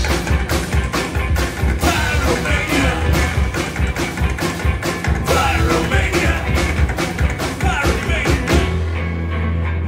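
Live rock and roll band playing: electric guitar, upright double bass and drum kit, with a steady run of drum hits. Near the end the drums stop and a low bass note is held.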